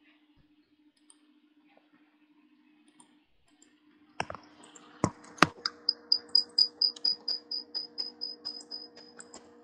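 Near silence with a faint low hum, then about four seconds in a few sharp clicks, followed by computer keyboard typing at about four keystrokes a second over the hum.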